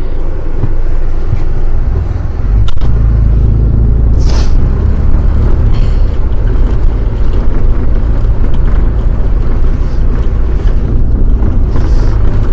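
Vehicle engine running with a steady low rumble, which grows louder about two and a half seconds in. There is a brief hiss about four seconds in.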